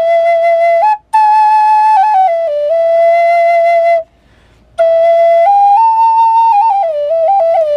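Large red cedar Native American flute, made by Stellar, played solo: a slow melody of long held notes that step up and down. There is a brief pause for breath about four seconds in, then a phrase that climbs and falls back through quick ornamented notes near the end.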